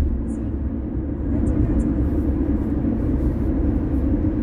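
A car driving, with a steady low rumble of road and engine noise and a few faint, short high clicks.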